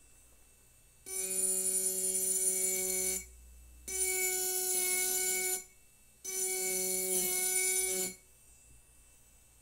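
Handheld engraving pen with a fine point cutting into a glass wine bottle: a steady pitched buzz in three bursts of about two seconds each, with short pauses as the tip is lifted between strokes.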